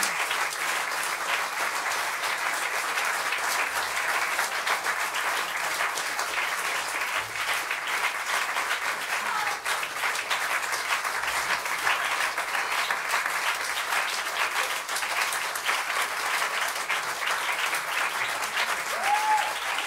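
Audience applauding in a steady round of dense clapping.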